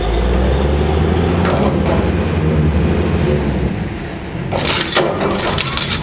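Manitowoc 4600 dragline at work: a low, steady machinery drone that fades after about three and a half seconds, then loud crunching and clattering of heavy rock against the steel bucket and its chains as the bucket is loaded and hoisted, with the loudest crashes about five and six seconds in.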